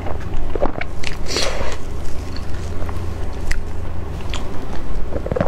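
Close-miked chewing and wet mouth sounds of a person eating soft mango crepe cake: irregular small smacks and clicks, with a softer squishy patch about a second and a half in, over a steady low hum.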